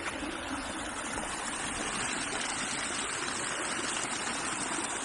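A small rain-swollen stream running steadily, an even rushing of water.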